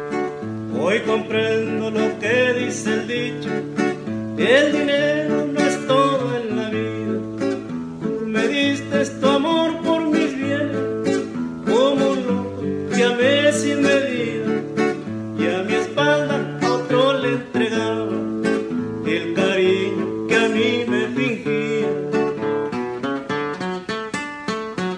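Acoustic guitar playing a steady accompaniment of alternating bass notes and strummed chords, with a wordless, wavering vocal melody over it in several phrases.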